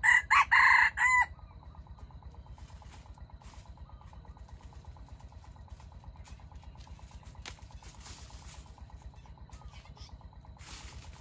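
A jungle fowl rooster crows once, a short, loud call of about a second broken into three parts, ending abruptly. After it only a faint low hum and a few soft rustles remain.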